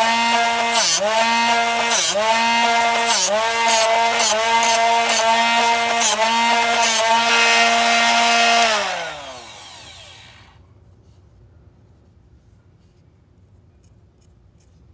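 Drill Doctor 500X drill-bit sharpener running, with the bit ground against its sharpening wheel in strokes about once a second; the motor's pitch dips briefly under each grinding pass. About eight seconds in the motor is switched off and winds down, its pitch falling away over about two seconds.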